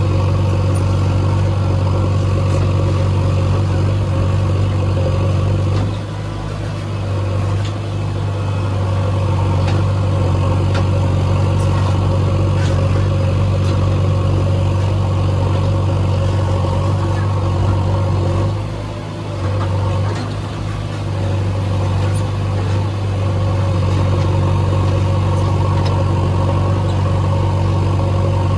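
Heavy diesel engine running steadily, its sound dipping briefly twice, about six and nineteen seconds in.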